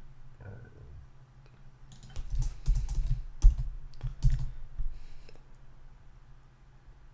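Computer keyboard being typed on: a short run of keystrokes, clustered between about two and five seconds in.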